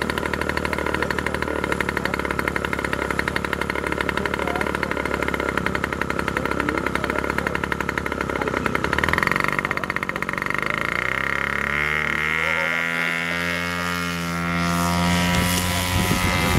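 Engine of a large scale-model Sopwith biplane, idling on the ground with a steady fast pulse. About nine seconds in it is opened up, and its pitch climbs over the next several seconds as the plane runs out and takes off.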